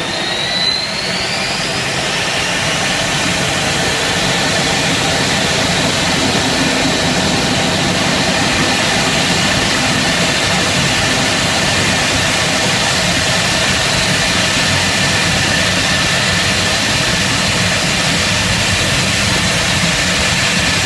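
L-39 Albatros jet trainer's AI-25TL turbofan engine at high power for takeoff, heard from inside the closed cockpit: a dense roar with a whine that rises over the first couple of seconds, then holds steady.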